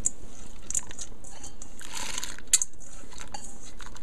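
Washed split peas tipped from an aluminium pot into a pot of boiling water: scattered clicks of peas and metal, the sharpest about two and a half seconds in, with a short rush of noise just before it.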